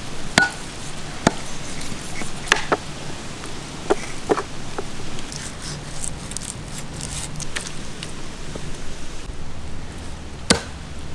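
Heavy cleaver chopping through slabs of stingray meat onto a log chopping block. The strikes are sharp and come at irregular intervals, about ten of them, and some land in quick pairs.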